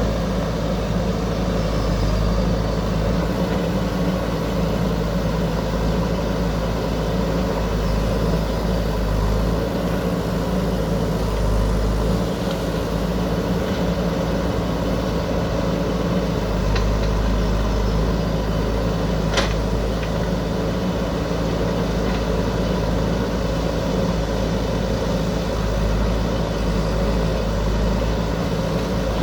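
JCB backhoe loader's diesel engine running steadily, with a single sharp click about two-thirds of the way through.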